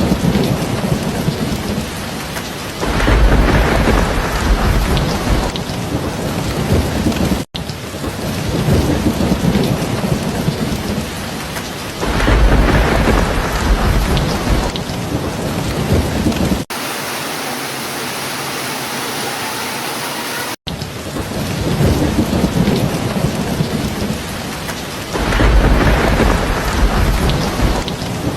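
Steady heavy rain with rolling thunder: a deep rumble swells three times, about a second in from each of three stretches. The sound cuts out briefly twice, and between the cuts a softer, thinner stretch of rain with no rumble plays for a few seconds.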